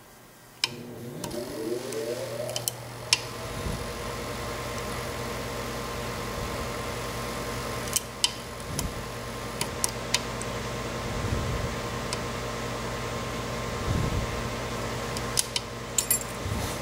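A small electric motor is switched on with a click, rises in pitch as it spins up over about two seconds, then runs with a steady hum. Scattered light clicks over the hum fit a pick and tension wrench working the pins of a pin-tumbler lock cylinder.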